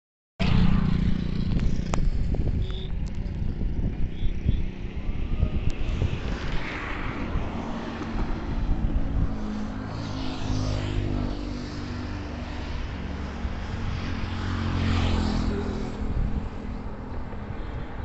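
Road traffic going by, with engines running and several vehicles passing in turn. Uneven rumble of wind on the microphone underneath.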